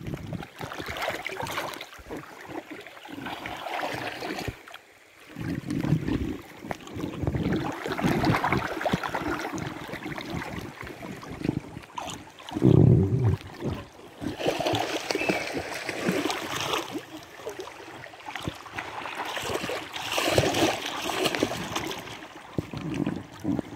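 River water sloshing and splashing around a floating inner tube, close to the microphone, in uneven surges with a few louder low thuds.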